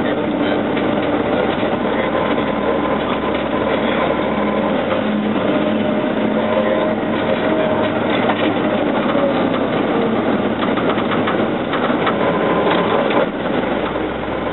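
Military patrol vehicle on the move, heard from inside: a steady engine and drivetrain drone with frequent rattles and clicks from the vehicle body.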